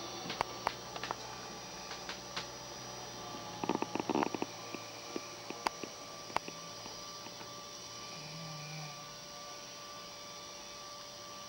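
Steady electrical hum under a sleeping woman's breathing, with a brief soft low snore near the end. A quick cluster of clicks and rustles about four seconds in is the loudest sound.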